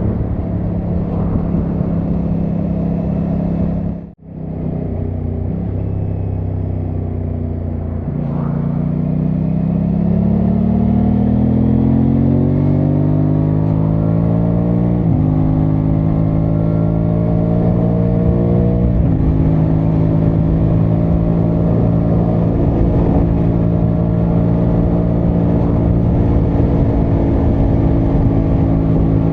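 Aprilia Tuono 660 Factory's parallel-twin engine under way: it holds a steady note, then accelerates with rising pitch through two upshifts, about halfway through and again about two-thirds through, before settling into a steady cruise. The sound briefly drops out about four seconds in.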